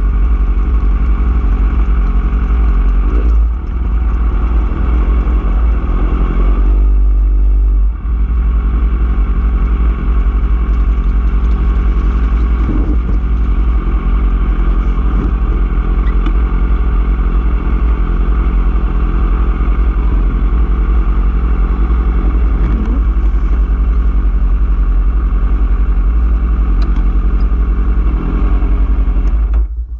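Motorcycle engine running at a steady, low pace while the bike is ridden slowly, with heavy low rumble on the bike-mounted camera. The note shifts briefly about seven seconds in, and the engine stops right at the end.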